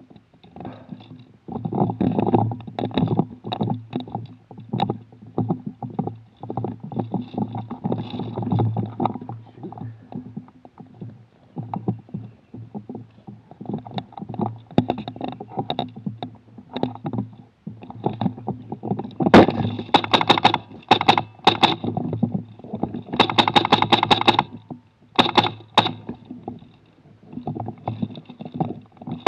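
Knocking and rubbing picked up through an airsoft rifle's rail-mounted camera as the rifle is carried and handled. About two-thirds of the way in come several rapid strings of sharp clicks: short full-auto bursts from an airsoft gun, the longest lasting over a second.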